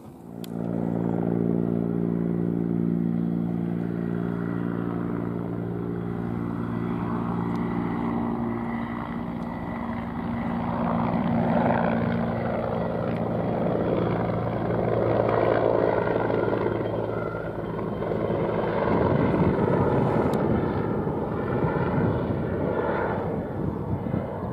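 Helicopter flying overhead with a water bucket slung beneath it: steady rotor and engine noise. A low hum under it drops away about three-quarters of the way through, leaving a rougher noise.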